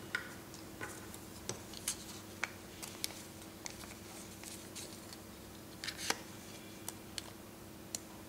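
Faint, irregular clicks and crinkles as a thin clear plastic strain gauge packet is handled and pulled open by hand, with metal tweezers ticking against a glass plate.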